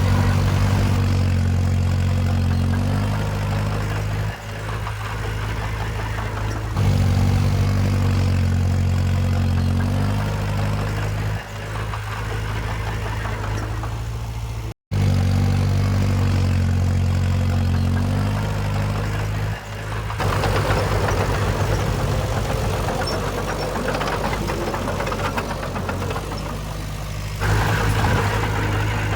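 Komatsu D20 bulldozer's diesel engine running, swelling louder for a few seconds at a time as it works under load and then dropping back, with a brief break in the sound midway.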